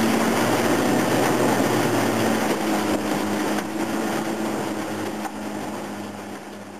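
Small boat's motor running steadily at an even pitch while underway, over a hiss of wind and water, fading out over the last few seconds.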